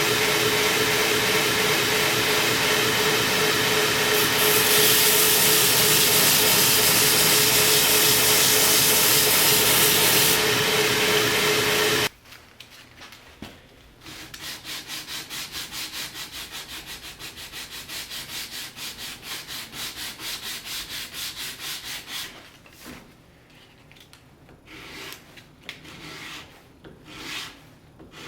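An electric power tool runs steadily with a constant hum and stops abruptly about twelve seconds in. After that, the wooden maple knife handle is sanded by hand: quieter back-and-forth rubbing strokes, about three a second, turning irregular near the end.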